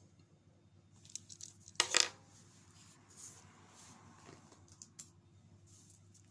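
Faint handling noise of small objects: scattered clicks and light clinks, with one louder short noise about two seconds in, over a low steady room hum.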